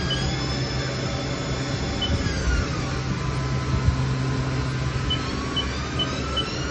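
2017 Haas TL2 CNC lathe spindle running, with a steady drive whine over a low hum. About two seconds in the whine glides down in pitch as the spindle slows, then climbs again from about five seconds as it speeds back up. Several short high chirps come near the end.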